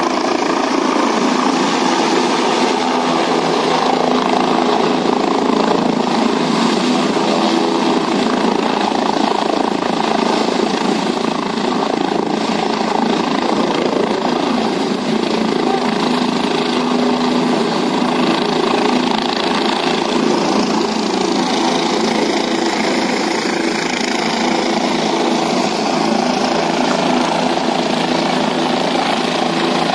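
A helicopter comes in, sets down on the helipad and keeps running on the ground, its engine and rotor making a steady, loud noise throughout.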